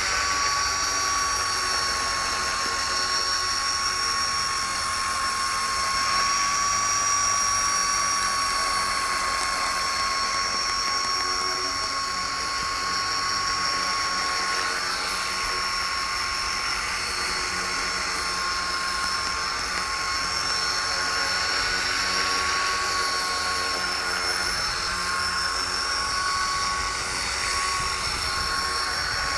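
Copter X 250 electric RC helicopter in flight: its brushless motor, gearing and rotor blades give a steady high-pitched whine, with small shifts in pitch near the end.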